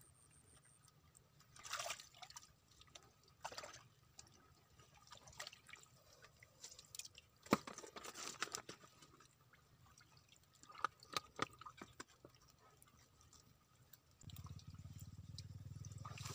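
Hands groping through wet mud and waterlogged debris: scattered squelches, drips and wet rustles of twigs and plastic. A low steady hum comes in near the end.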